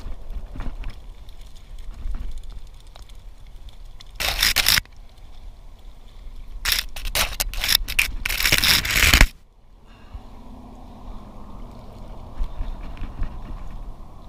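Handling noise from throwing and hauling a cast net: the sleeve and net rope rubbing and scraping close to the microphone, in one short burst about four seconds in and a longer one that cuts off suddenly about nine seconds in, over a low wind rumble.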